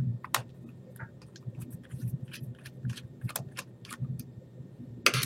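Irregular small clicks and taps of a screwdriver working a screw out and handling small metal and plastic parts inside an open laptop. There is a slightly louder pair of clicks near the end.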